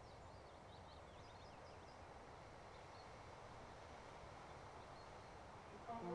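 Near silence: faint background hiss, with a few faint, short, high chirps in the first second or so.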